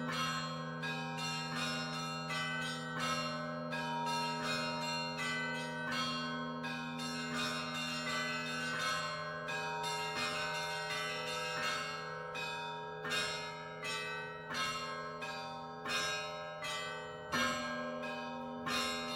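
Russian Orthodox church bells rung in a peal: quick, uneven strikes of the smaller bells over the long hum of a large bell. The hum dies away about halfway through and comes back with a heavy strike near the end.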